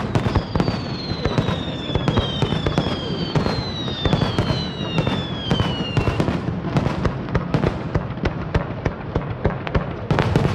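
Aerial fireworks: a dense, continuous run of rapid cracks and pops, with several high whistles falling in pitch through the first half.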